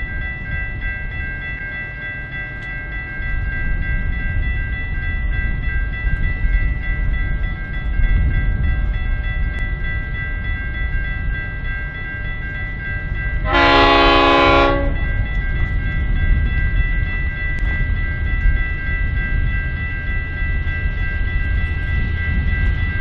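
V/Line N-class diesel locomotive approaching with a train of passenger cars, its engine a steady low rumble that slowly grows louder. About halfway through it sounds its horn once, a chord held for a little over a second.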